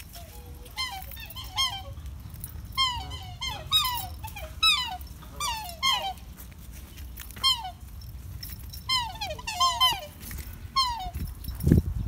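Short, squeaky, whistle-like animal calls, often two or three in quick succession, repeated all through over a low steady rumble.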